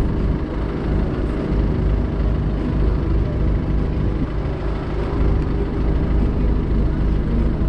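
Tuman-3 self-propelled sprayer's engine running steadily, heard from inside the cab, while its hydraulics unfold the spray boom.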